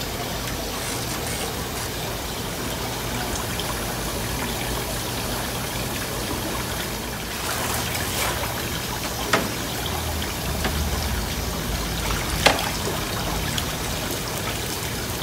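Water running and trickling steadily into live-bait tanks, with two short sharp sounds in the second half as a dip net is worked in the water.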